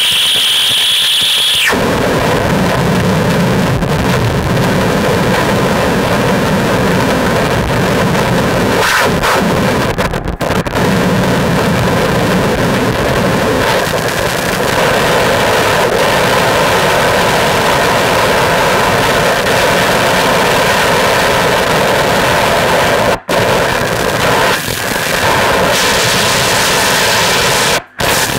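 Live harsh noise performance from a tabletop rig of electronics and effects pedals: a loud, dense wall of distorted noise. A high whistling tone sits on top for the first couple of seconds and then stops, and near the end the noise cuts out abruptly for an instant twice.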